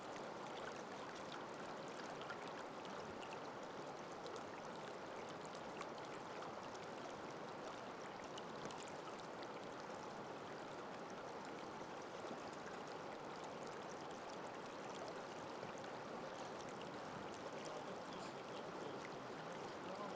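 Creek water flowing: a steady, even rush of running water.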